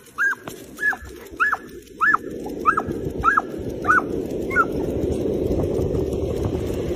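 Dog giving a run of short, high, excited yelps, about eight at an even pace, fading out after four or five seconds. A steady rushing noise builds up underneath as it sets off running.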